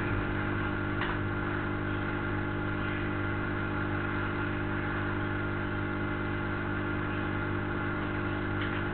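Steady electrical mains hum with hiss: a buzz of many evenly spaced tones that does not change, with a faint click about a second in.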